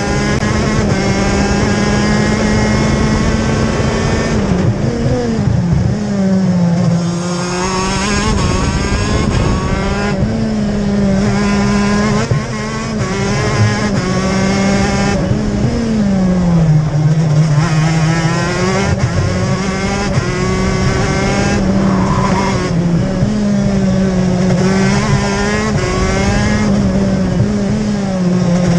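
A TM K9C 125cc two-stroke shifter kart engine at racing speed. Its note climbs in pitch through the gears with brief breaks at each shift, and drops several times as the revs fall going into corners.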